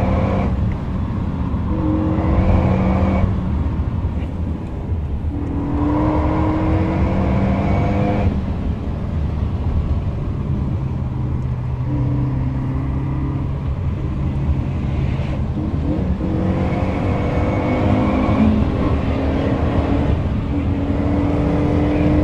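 Renault Mégane RS 265's 2.0-litre turbocharged four-cylinder engine heard inside the cabin under hard acceleration. Its pitch climbs with the revs and drops abruptly at each upshift, several times over. For a few seconds in the middle it holds a steadier, quieter drone.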